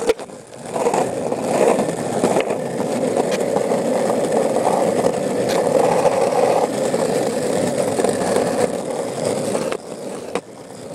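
Old cruiser skateboard on soft longboard wheels rolling over rough asphalt: a steady rolling rumble that builds about a second in and dies away near the end, with a short click at the start and another near the end.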